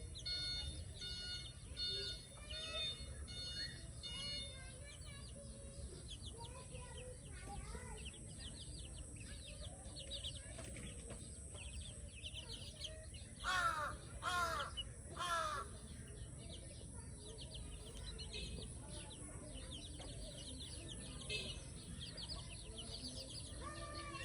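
Small birds chirping continuously, with three loud calls in quick succession about halfway through.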